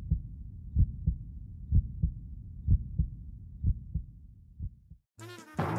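Heartbeat sound effect: a deep lub-dub double thump about once a second, stopping about five seconds in. Music begins just before the end.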